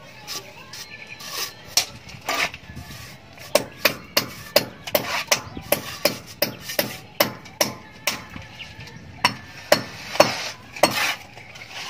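Steel plastering trowel clicking and scraping against a mortar board and the wall as cement plaster is scooped up and spread onto hollow blocks. The sharp taps come about two or three a second, from a few seconds in to near the end.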